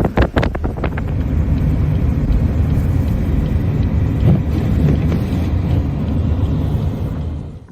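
A car driving through a blizzard: a steady low rumble of engine, road and wind noise, with a few sharp knocks in the first second. The rumble drops away just before the end.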